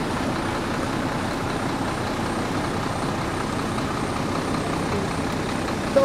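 Large tour bus engine running at idle, a steady rumble with no change in pitch.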